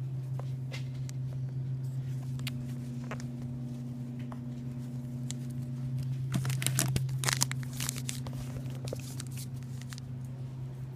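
Wrappers of two baseball card packs crinkling as they are handled, with a burst of crackling about six to seven and a half seconds in, over a steady low hum.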